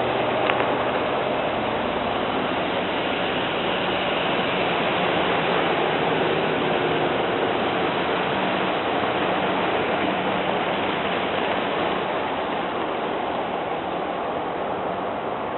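Steady rushing noise of snowplow trucks and traffic rolling down a snowy street, easing off a little near the end.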